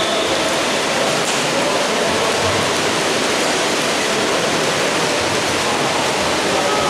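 Steady, even rush of water splashing from swimmers in an echoing indoor pool hall.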